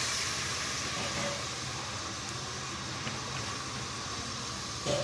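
Steady hiss with a low hum underneath and no clear event, with one small knock near the end.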